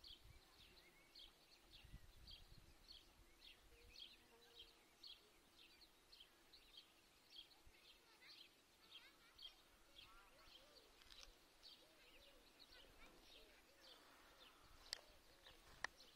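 Greylag goose goslings peeping: a faint, steady run of short, high, downward-sliding peeps, about two to three a second, with softer wavering calls in between. Two sharp clicks near the end.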